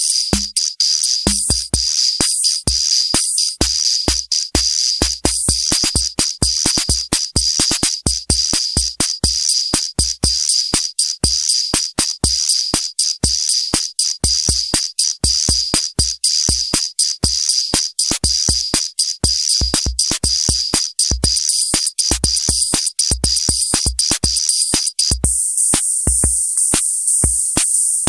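Roland TR-8S drum machine playing CR-78-style rhythm patterns: short low kick thumps and clicks under a steady, fast metallic hi-hat and percussion pattern. Near the end the pattern changes and the high part turns brighter.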